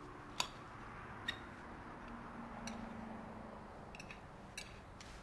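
A few small, sharp clicks of cutlery against plates at a meal, about five spread through a quiet room tone.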